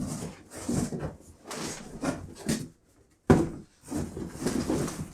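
Packaging rustling and scraping in irregular bursts as chair parts are handled and pulled from the box, with a sharp bump a little past halfway.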